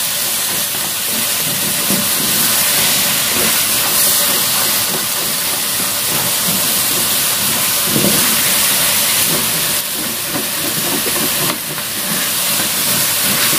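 Chicken and potato pieces sizzling with a steady hiss in a wok as the soy-sauce coating cooks down until dry, with the scrape of a spatula stirring them.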